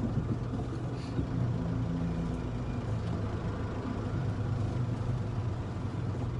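Delivery truck's engine running steadily with an even low hum, with no revving or changes in speed.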